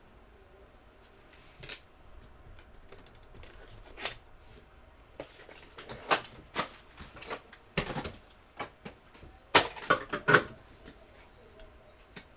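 Trading cards being handled: scattered taps, clicks and brief rustles, busiest from about six seconds in until about ten and a half seconds.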